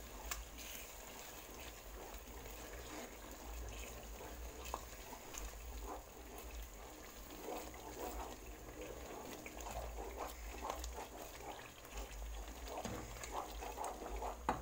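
Wooden spoon stirring a tomato and coconut-milk sauce in a metal pan: the liquid sloshing, with a few light knocks of the spoon against the pan.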